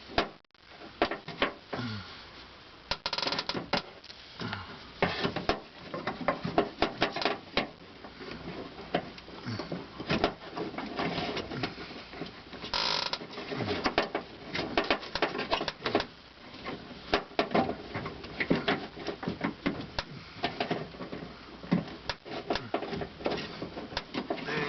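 Irregular small clicks, taps and rattles of hands working the plastic and metal parts of a car's outside door handle assembly, clipping the handle's linkage rod into its retainer inside the door.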